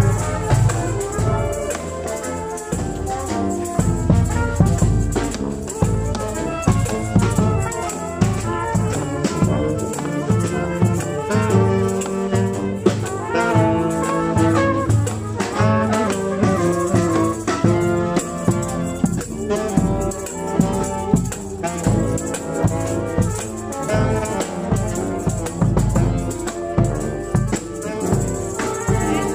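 Live street-band music with brass instruments playing melody over a steady beat of hand percussion such as tambourine.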